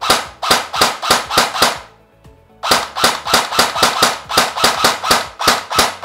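CYMA M4 CQB CM506S airsoft electric rifle with an electronic MOSFET trigger, running on a 9.6 V battery, fired in rapid semi-automatic shots of about five a second. There are two strings, with a short pause about two seconds in; each shot is a sharp snap of the gearbox cycling.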